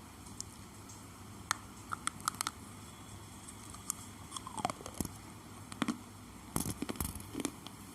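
Thick Swift slate pencils being bitten and chewed: sharp crunches and cracks in irregular clusters, the busiest run near the end.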